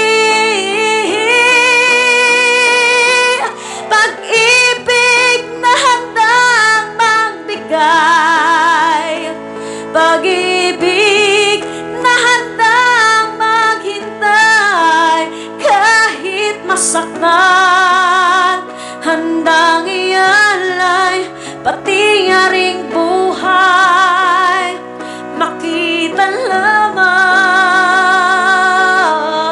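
A woman singing a song with strong vibrato on long held notes, over instrumental accompaniment.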